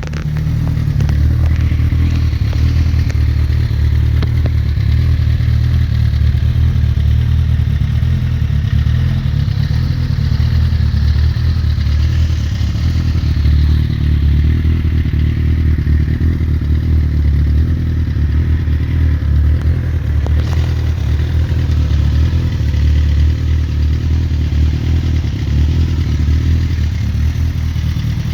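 Suzuki GSX-R1000 inline-four motorcycle engine firing up and then idling steadily with a deep rumble.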